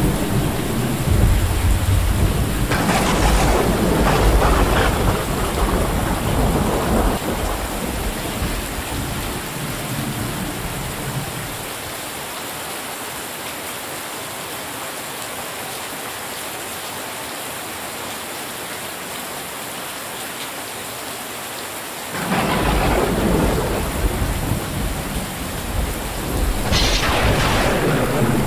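Steady heavy rain with thunder: a long low rumble through the first third with a sharp crack about three seconds in, then rain alone for a while, until thunder breaks in suddenly about two-thirds of the way through and cracks again near the end.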